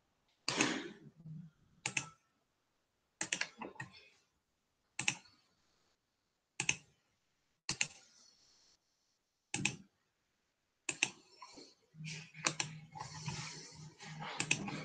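Scattered clicks of computer keys, one or two at a time about every second, with dead silence between them. Near the end the taps come closer together over a faint low hum.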